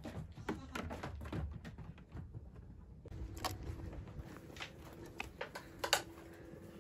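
Scattered knocks, clicks and rustling as goats and their keeper move about a wooden goat shed with straw on the ground; the loudest is a single sharp knock about six seconds in.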